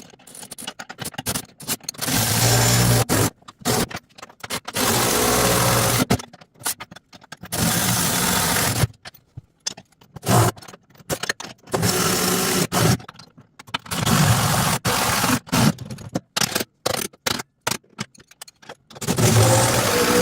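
A wrench tightening the 19 mm nuts on the bolts that hold a hook bar to a tractor loader bucket. It comes in about seven separate spells of a second or two each.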